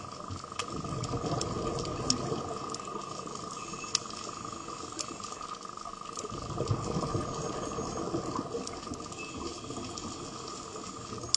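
Underwater ambience: bubbling, gurgling water that swells twice, about a second in and again past the middle, over a steady hum and scattered sharp clicks.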